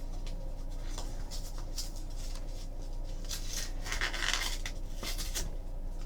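Trading cards and pack wrappers being handled: light clicks and a short rustle about four seconds in, over a steady low room hum.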